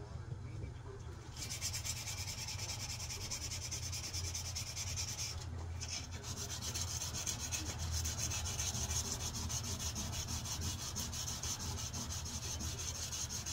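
Sandpaper rubbed by hand along a knife blade clamped in a vise, in steady back-and-forth strokes. The strokes start about a second and a half in and pause briefly near the middle. A steady low hum runs underneath.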